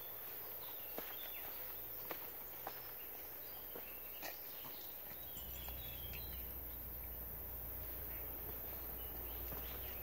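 Footsteps on woodland leaf litter and twigs, sharp crackles about once a second in the first three seconds, with short, high bird chirps scattered through. A low rumble on the microphone sets in about halfway through.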